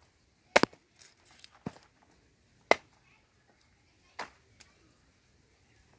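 Machete chopping through a whole fish onto a wooden stump chopping block: four sharp chops about a second apart, with a few lighter knocks between them.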